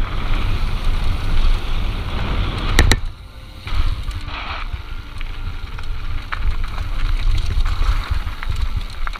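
Downhill mountain bike running over rough trail, heard from an on-bike camera: wind buffeting the microphone, tyres and frame rattling over the dirt, with a sharp knock about three seconds in.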